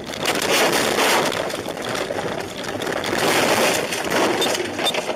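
A car running off a snowy road into a roadside ditch and brush, heard from inside the car: a long, loud rush of snow, slush and branches hitting and scraping the body, with many small clattering knocks, swelling twice.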